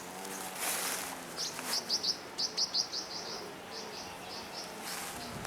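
A bird chirping a quick run of short, high notes, about three a second, that thins out near the end, over a quiet rural background with a faint steady low hum.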